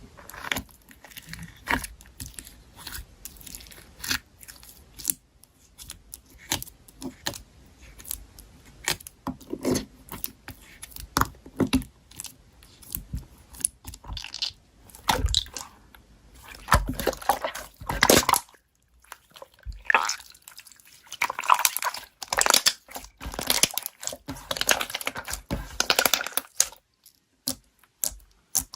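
Slime being squeezed and stretched by hand: irregular sticky clicks and pops, denser and crackling for several seconds in the second half.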